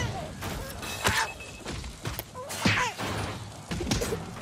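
Cartoon brawl sound effects: several thuds and whacks about a second apart, mixed with short falling squawks and cries from the cartoon ostriches.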